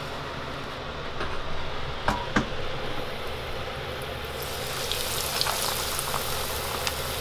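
Battered mozzarella cheese dogs deep-frying in hot oil, with a crackling sizzle that grows louder from about halfway through. Two short knocks come about two seconds in, over a steady low hum.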